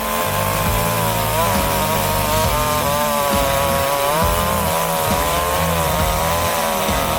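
UYUSTOOLS gas chainsaw running at high revs and cutting wood, its engine pitch dipping and rising as it takes the load of the cut.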